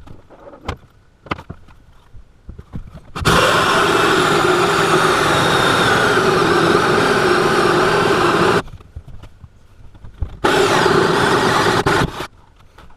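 Power drill running a hole saw down through a countertop in two runs: about five seconds of steady cutting, a pause, then a shorter run of about two seconds. A few light handling clicks come before the first run.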